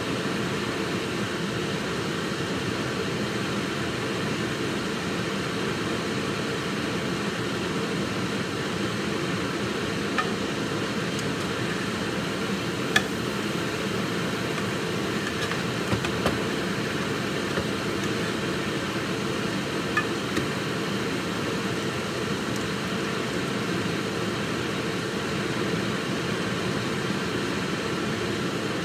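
Steady mechanical hum and hiss, broken by a few faint light clicks about halfway through.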